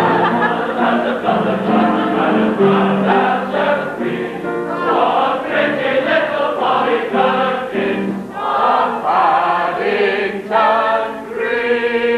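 Welsh male voice choir singing in harmony, accompanied on a keyboard. Near the end the voices settle on one long held chord.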